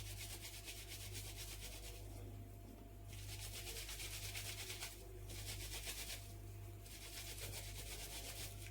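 Kitchen cleaning cloths being scrubbed by hand with stain-removing soap: fast, faint rubbing strokes that stop briefly a few times.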